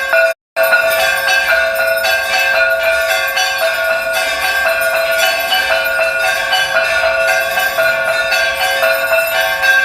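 Temple bells ringing continuously, many overlapping steady metallic tones sustained over one another. The sound cuts out completely for a split second about half a second in, then resumes.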